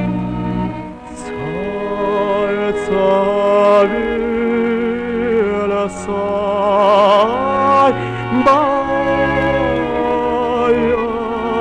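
A man singing a slow song in long held notes with a wide vibrato, over a low sustained instrumental accompaniment. The voice comes in with a rising slide about a second in.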